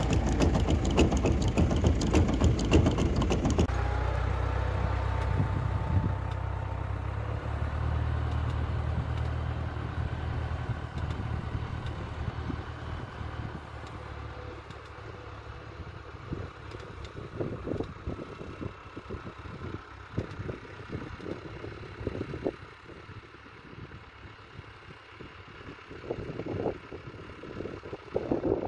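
Tractor engine running as the tractor carries a mounted Vicon fertiliser spreader away across a field. Its steady low hum fades as it moves off. The first few seconds are a louder, crackly noise close to the machine, and toward the end irregular low gusts come and go.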